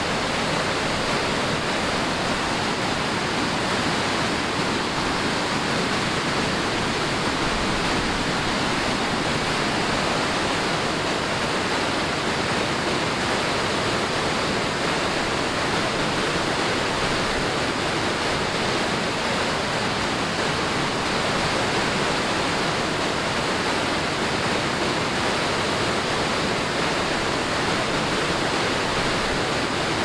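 Steady rush of falling water from a waterfall: an even wash of water noise that holds the same level throughout.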